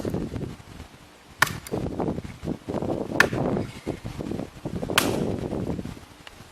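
Three sharp hammer blows about two seconds apart, each followed by a short scuffing rustle: a stake being driven into the ground for a bird-feeder pole.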